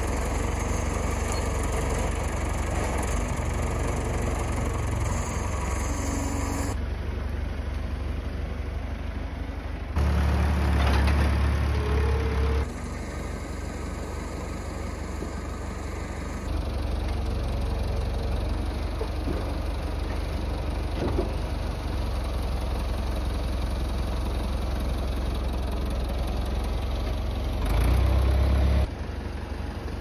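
Massey Ferguson MF 30/MF 34 tractor engine running steadily while its front loader forks lift and carry logs. There are short louder, deeper stretches about ten seconds in and again near the end, and the sound shifts abruptly several times.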